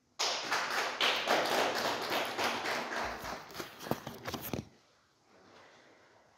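Applause: many hands clapping, which breaks off abruptly after about four and a half seconds.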